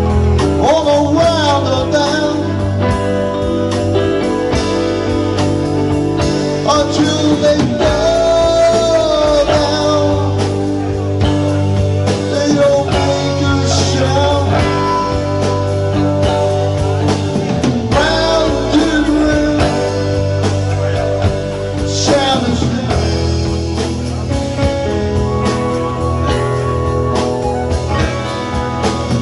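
Live rock band playing: electric guitar, electric bass, keyboard and drum kit together, with a blues-rock feel. Over a steady low end, a melody line bends and wavers in pitch.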